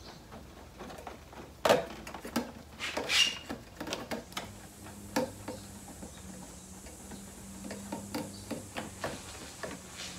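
Scattered small clicks and knocks of hand work on a motorcycle, parts and a screw being handled and fitted, with a sharper knock about two seconds in and a brief scrape a second later.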